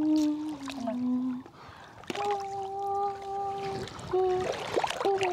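Background music, a melody of long held notes, with water splashing and dripping as hands scoop mud and weeds out of shallow water.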